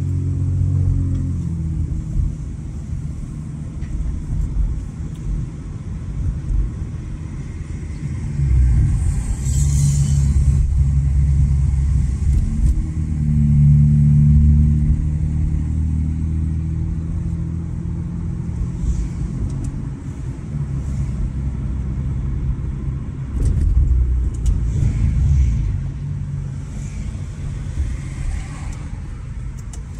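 Muffler-deleted Honda Accord V6 exhaust droning while driving, growing louder in several surges under throttle.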